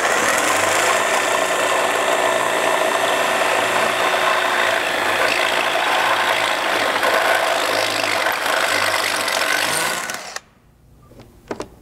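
Cordless drill boring a 5/16-inch hole through the steel of a rock-slider leg mount and the Jeep's body, running steadily under load for about ten seconds, then stopping; a couple of light clicks near the end.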